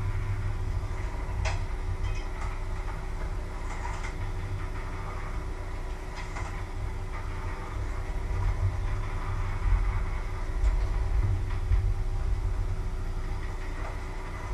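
A steady low hum of kitchen machinery, with a few short clinks and knocks of pots and utensils being handled, mostly in the first half.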